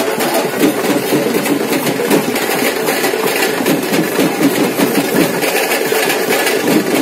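Loud, fast drumming in an unbroken rhythm by a folk drum troupe playing large frame drums and other hand-beaten drums.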